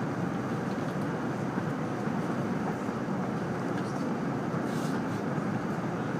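Steady rumble and hiss of an E2 series Shinkansen train, heard from inside the passenger car.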